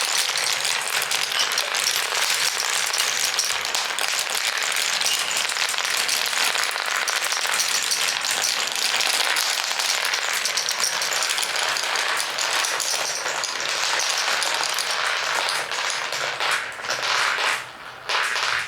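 Many glass marbles rolling and clattering down a marble run, a dense stream of clicks that thins out in the last few seconds and stops just before the end.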